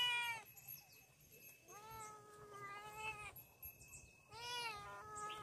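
Young tabby cats meowing: three drawn-out meows, the loudest tailing off just after the start, a longer one about two seconds in, and another near the end. The cats are begging for milk.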